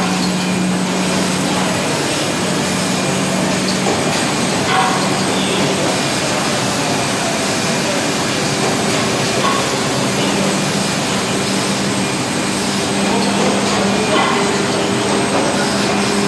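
Steady machinery noise from an industrial blini production line: a constant hum with a low tone fading in and out, and a few light clicks.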